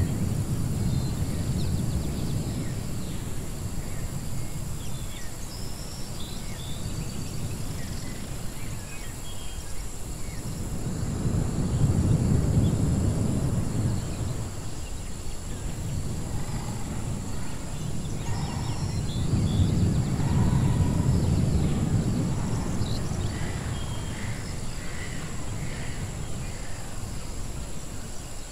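Layered wilderness ambience: a low, wind-like rumble that swells twice, near the middle and about two-thirds through, under scattered short bird chirps and calls.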